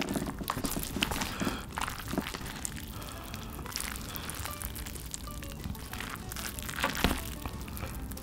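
Chopsticks stirring and lifting saucy instant noodles in a paper bowl: scattered light clicks and knocks, with a louder cluster about seven seconds in, over background music.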